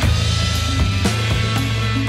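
Background music with drums and a steady bass line, the full band coming in louder right at the start.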